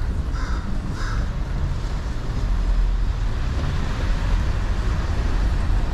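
Steady low rumble of street traffic on a wet city street. Three short, high calls about half a second apart come in the first second.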